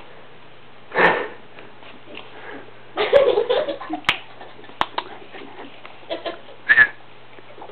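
Perro de Presa Canario sniffing and snuffling with a cloth draped over its head, in several short bursts, with a couple of sharp clicks in between.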